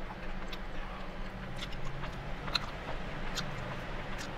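A person chewing food with soft, scattered mouth clicks, over a steady low hum.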